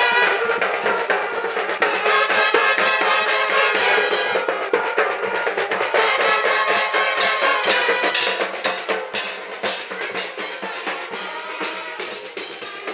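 Street marching band playing: bass and snare drums beating under trumpets. The band grows fainter over the last few seconds.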